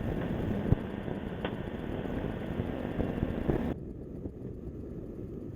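Snowmobile running steadily along a trail, a low even engine-and-track noise with a couple of faint clicks; the hiss thins out about two-thirds of the way through.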